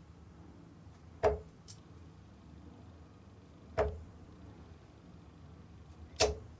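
Three Darryl Fitton darts thudding into a dartboard one after another, about two and a half seconds apart. Each hit is a sharp thunk with a short ring after it.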